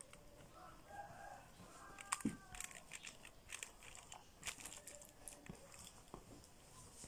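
A rooster crows faintly during the first two seconds or so. This is followed by a run of crisp scrapes and taps as cooked rice is scooped up off a tray.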